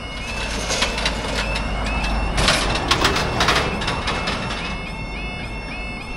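UK level crossing yodel alarm sounding its rapidly repeating warble as the road lights flash to warn of an approaching train. In the middle, a car drives over the crossing and past, its rising and falling rush loudest a few seconds in, with sharp knocks as it goes.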